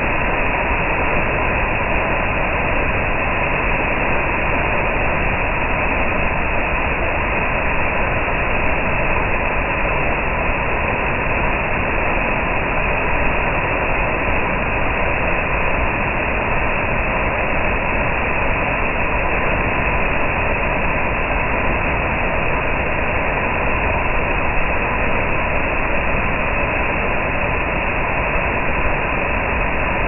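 Waterfall pouring down a rock face into its plunge pool: a loud, steady rush of falling and churning water.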